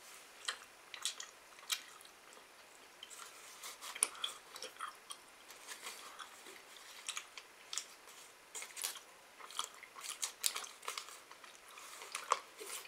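Waxed-paper wrapper of a Tootsie Roll crinkling as it is twisted and pulled open by hand: irregular crackles and sharp little clicks.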